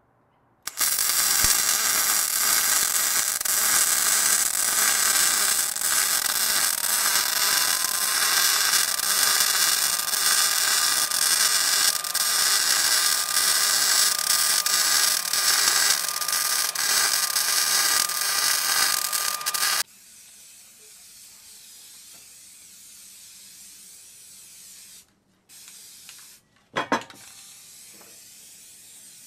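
Wire-feed welder laying a long continuous bead, a steady loud crackling hiss that starts about a second in and stops abruptly after about 19 seconds. After it there is only a much quieter steady hiss, with a sharp click near the end.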